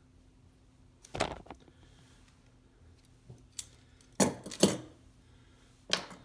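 Small metal hand tools being handled, likely the pliers and the loose pin tool: a few sharp metallic clinks and clatters, one about a second in, a louder pair past the middle and one more near the end.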